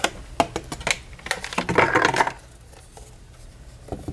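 Hard plastic clicks and knocks from handling a toy drone's remote controller, with a short scrape or rustle about two seconds in. A quieter pause follows, then a couple more clicks near the end.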